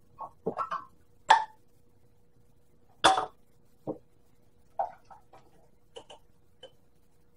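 A series of short knocks and clinks from a glass canning jar and its metal lid being handled, with chickpeas tipped from the jar into a plastic food processor bowl. The loudest knock, about three seconds in, rings briefly.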